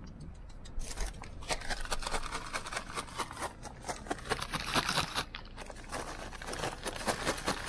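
Rapid, irregular crunching and rattling of feed pellets, starting about a second in, as an animal pecks feed.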